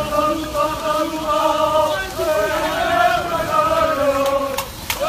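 Long held, slowly wavering notes of chanting or singing, with a few sharp clicks near the end.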